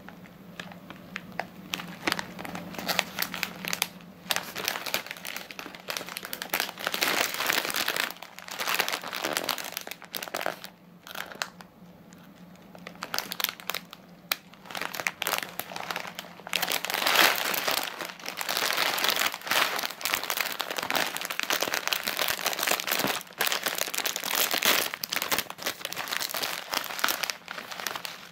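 Plastic snack bags crinkling as they are handled and turned over, in irregular rustling bursts with a quieter lull about ten to twelve seconds in.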